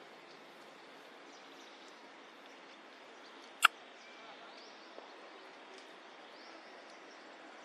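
Outdoor background ambience: a steady low hiss with a few faint bird chirps. It is broken once, a little over three and a half seconds in, by a single loud, sharp click.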